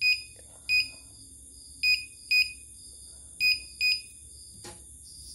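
Control-panel key beeps of a CNY portable embroidery machine: six short electronic beeps, singly and in quick pairs, each one a button press acknowledged while paging through the stored design files and menu. A faint click follows near the end.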